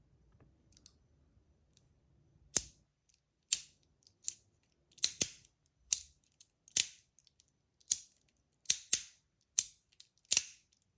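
Magnetic syringe-style metal desk fidget clicking as it is pushed and snapped. About a dozen sharp clicks with a brief ring start about two and a half seconds in, roughly one every second, a few in quick pairs.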